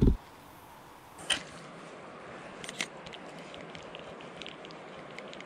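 Handling noise from a camera and a spinning rod and reel: a brief low rumble as the camera is moved at the start, two sharp clicks, and faint light ticking as the reel is handled.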